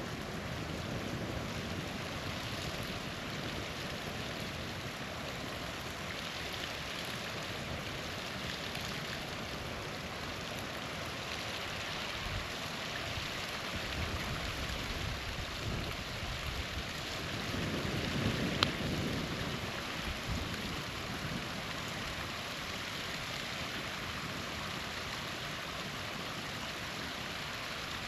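Small waterfall rushing steadily beside a crackling campfire, with one sharp pop from the fire about two-thirds of the way through, amid a brief louder swell.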